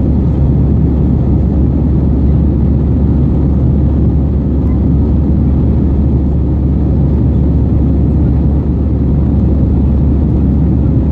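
Steady low rumble inside the cabin of an Airbus A319-111 climbing after takeoff: its CFM56 engines and the air rushing past the fuselage, heard from a window seat.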